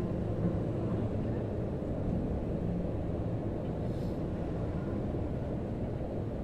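Steady low rumble of outdoor city background noise, with a faint click about four seconds in.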